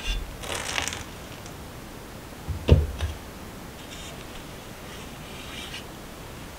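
A cotton steaming cloth rustles and scrapes as it is handled in a steamer basket. There is one dull thump a little under three seconds in, followed by a lighter knock, and faint rustles come later.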